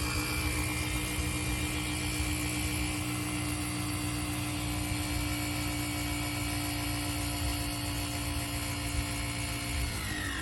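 Small electric air compressor built into a Green Keeper GK-J1206P lithium jump starter, running steadily as it pumps air after the inflate button is pressed. It makes an even mechanical hum with a high whine, and its pitch falls near the end.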